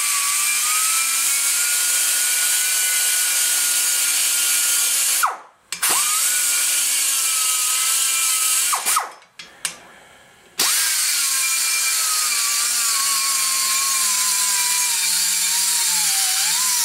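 Die grinder with a small burr whining as it grinds a pressed-in valve seat out of a cast-iron Ford FE 427 Tunnel Port cylinder head. It runs in three stretches, stopping briefly about five seconds in and again about nine seconds in. In the last stretch its pitch slowly sinks.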